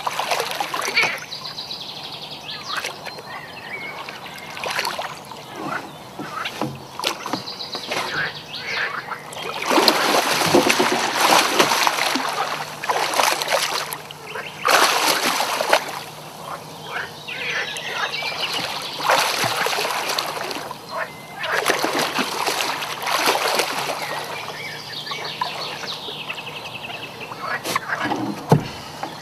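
Hooked wels catfish thrashing at the surface beside a small boat, splashing in repeated bursts. The loudest splashing comes from about ten to sixteen seconds in and again from about nineteen to twenty-four seconds.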